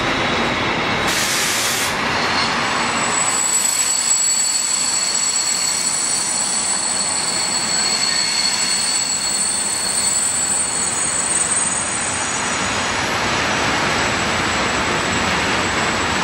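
Freight wagons, hoppers and then tank wagons, rolling past close by with a continuous rumble and rattle of wheels on the rails. Through the middle of the passage there is a thin, high, steady wheel squeal, and a brief hiss about a second in.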